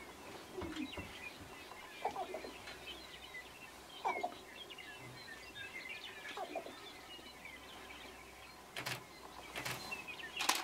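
Sharp-tailed grouse calling on a display ground: a louder, lower call about every two seconds over a steady scatter of short high chirps, with three brief noisy bursts near the end.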